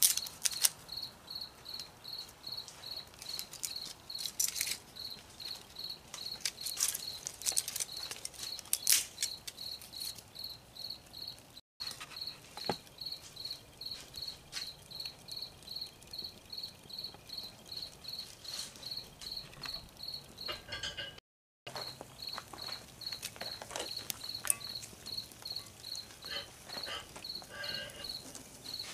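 Crickets chirping in a steady, even pulse, with scattered sharp crackles and clicks from a paper-and-kindling fire burning in a brake drum forge.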